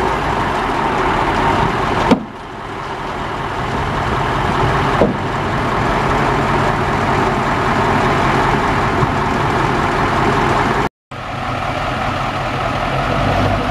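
The Cummins VT903 diesel in a 1984 Kenworth dump truck, running steadily. A sharp click comes about two seconds in and another about five seconds in, and the sound drops out completely for a moment near eleven seconds.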